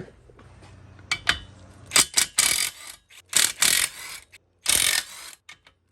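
Half-inch-drive socket ratchet clicking in several short bursts as it loosens cylinder head bolts.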